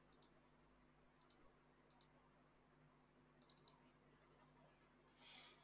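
Faint clicking at a computer over near silence: a few single clicks, then a quick run of about four clicks around three and a half seconds in.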